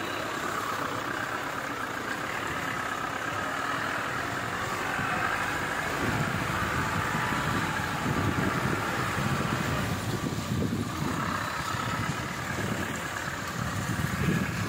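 Vehicle engine running and tyres working over a muddy, rutted dirt road, heard from inside the cab. About six seconds in, a louder, uneven low rumble sets in.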